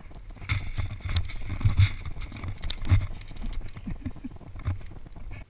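Snowboard sliding and scraping over snow, heard close up from a board-mounted or helmet camera. The scraping comes with low rumbling swells and a few sharp knocks, and cuts off suddenly at the end.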